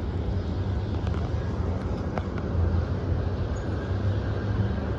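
Steady low rumble of wind on the microphone and road noise from riding along a city street, a little louder a couple of seconds in.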